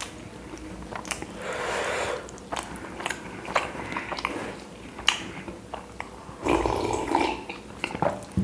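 A man chewing and biting chapati close to the microphone: many small wet mouth clicks, with two longer noisy stretches, about a second in and near the end.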